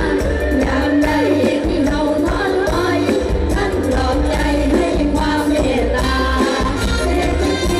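Live Isan mor lam band music with singing over a steady bass and drum beat.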